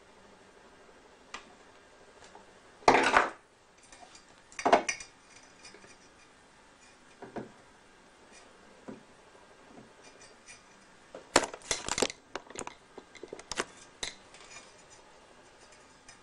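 Small metal hand tools and wire being handled on a workbench: a few sharp clinks and clatters, the loudest about three seconds in and a quick cluster around twelve seconds in.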